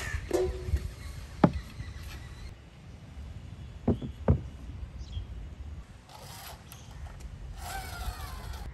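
Sparse sharp clinks and knocks of kitchenware being handled: the first rings briefly, like a stainless steel bowl, and two quick taps on ceramic jars come about four seconds in. A soft rustle follows near the end as a jar is lifted.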